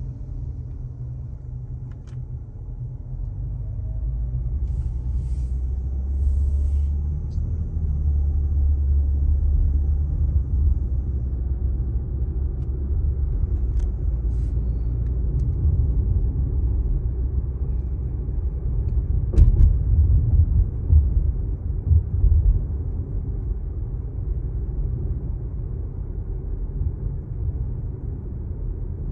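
Low, steady rumble of a car heard from inside the cabin while driving slowly: engine and tyre noise, with a few faint short ticks, the sharpest about two-thirds of the way through.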